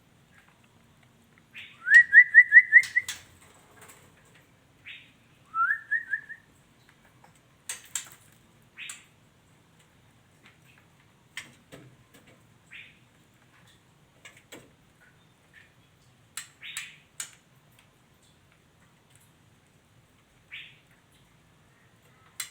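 Female white-rumped shama calling: a quick run of about five rising whistled notes about two seconds in and a shorter run near six seconds, with scattered short chips and clicks in between.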